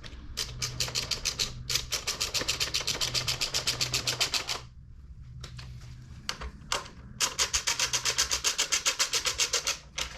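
Hand ratchet wrench clicking rapidly, about ten clicks a second, in two runs of a few seconds each with a few single clicks between, as the bolts holding the side plastics are run back in.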